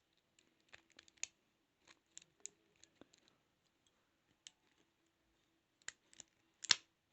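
Lock pick and tension tool scratching and clicking inside a 32mm padlock as its pins are set one by one, with a louder click near the end as the padlock opens.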